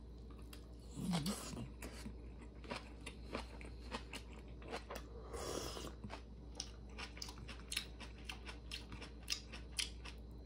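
Close-miked chewing and mouth sounds of a person eating rice and side dishes, with many irregular crunchy clicks and smacks, and a short low hum about a second in.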